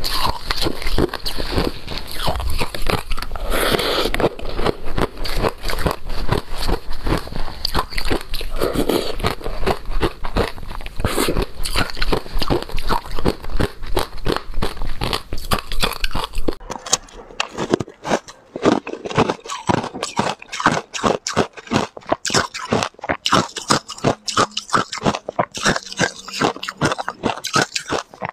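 Passion-fruit ice being bitten and chewed close to the microphone, a dense run of rapid crunches. Past the middle the crunches turn sharper and thinner, with less low background under them.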